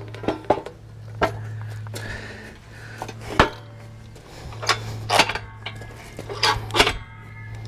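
Heavy steel quick-attach frame clanking and knocking against a tractor loader's quick-attach plate as it is lifted and seated, in about eight separate hits, over a steady low hum.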